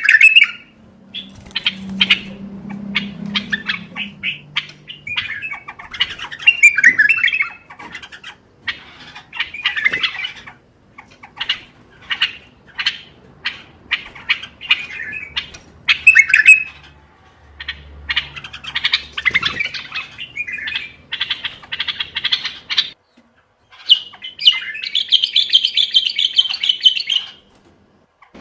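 Common bulbul singing: a run of short, sharp chirping phrases broken by brief pauses, with a longer rattling trill near the end.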